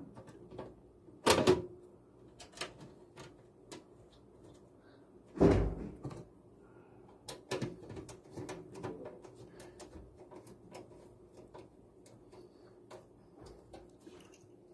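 Knocks, clunks and small clicks from handling a desktop PC case while its power supply is being swapped. Two heavy thumps, one about a second and a half in and a louder one about five and a half seconds in, with scattered light taps and clicks between.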